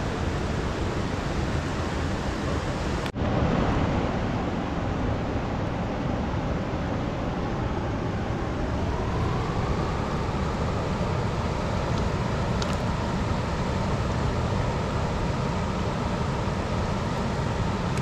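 Fast, turbulent river water rushing steadily, with a momentary break about three seconds in where the recording cuts.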